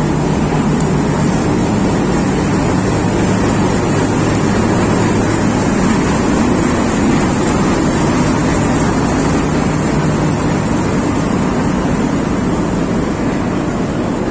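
Pakistan Railways diesel locomotive and a rake of empty passenger coaches rolling past along a platform: a steady loud rumble of coach wheels on the rails. A low engine drone is mixed in and fades out about ten seconds in.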